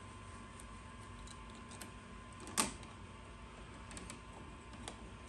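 Faint scattered clicks and ticks of copper wires and a plastic wire nut being handled and pulled apart in a plastic electrical box, with one sharper click about halfway through.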